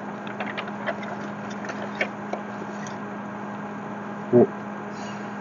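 Steady low electrical hum with a background hiss, broken by scattered faint ticks in the first couple of seconds and a brief vocal sound a little over four seconds in.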